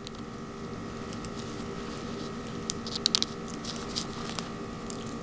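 Light clicks and taps of small printed plastic idler parts and tiny bearings being handled and pressed together by hand, with a quick cluster of clicks about three seconds in. A faint steady hum runs underneath.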